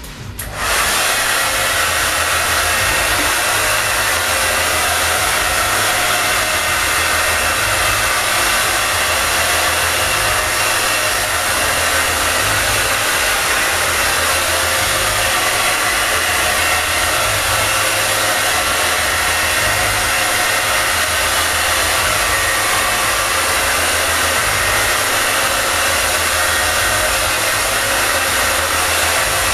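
Handheld hair dryer switched on about half a second in and running steadily, blowing on the hairsprayed base of a spike of hair to set it hard.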